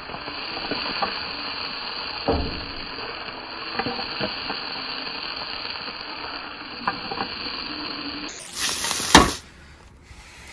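Lobster pieces, tomatoes and greens sizzling in oil in a frying pan on a portable gas stove: a steady hiss with a few light knocks as the pan is tossed and stirred. Near the end the sizzling cuts off, and there is handling noise with one loud thump.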